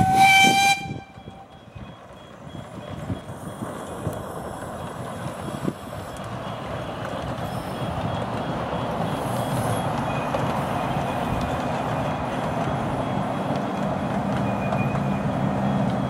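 Miniature railway steam locomotive's whistle, a single blast ending within the first second. Then the passenger train running along the narrow-gauge track, a steady rumble that grows louder over the next several seconds and holds.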